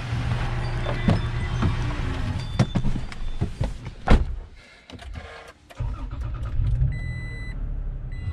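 Rustling and clicks, then a car door shutting with a thud about four seconds in. About six seconds in a Toyota Tacoma TRD Pro's engine starts and settles into a low idle, and a dashboard warning chime sounds twice.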